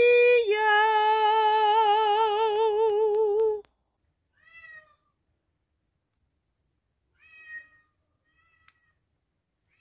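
A domestic cat's long meow with a wavering pitch, held for about three and a half seconds and then cut off suddenly, followed by three faint short mews.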